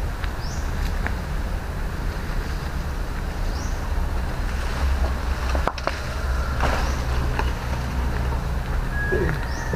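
Steady low rumble of wind on the microphone, over which a coconut palm frond rustles and scrapes as it is dragged and laid on the dirt, with scuffing flip-flop footsteps. A few short, high, rising chirps come now and then.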